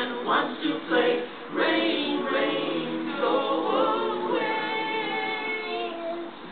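A cappella vocal quartet singing in close harmony, settling into a held chord about four and a half seconds in that ends shortly before six seconds.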